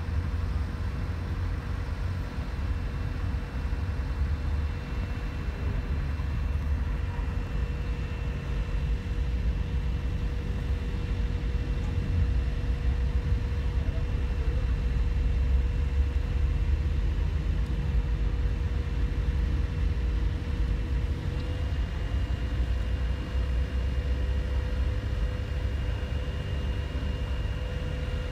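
Diesel engine of a truck-mounted telescopic mobile crane running steadily under load while it hoists a heavy steel girder: a low rumble with a steady higher whine over it, the pitch stepping up slightly about three-quarters of the way through.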